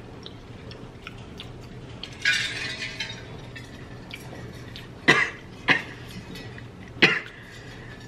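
Quiet chewing and small clicks of eating crunchy shortbread cookies. About two seconds in comes a brief hissy burst, then three short coughs near the end.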